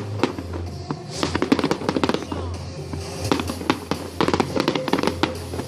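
Fireworks going off in rapid crackling bursts of sharp pops, several clusters about a second apart, over music playing in the background.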